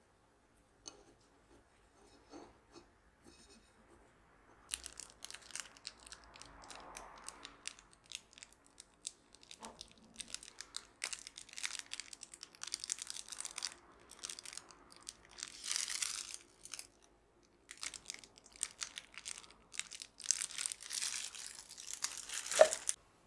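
Whipped cream being piped from a plastic piping bag: the squeezed bag crinkles and crackles in bursts with short pauses. This follows a few faint soft taps as a ball of bean paste is set on the tart shell.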